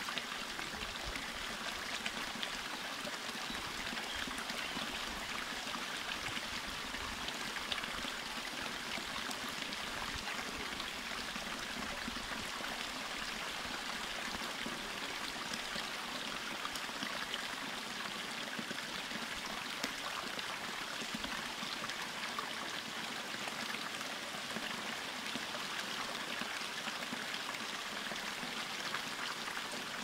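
Freshwater spring water flowing steadily over rocks into a rock pool, a continuous burbling trickle with faint droplet ticks.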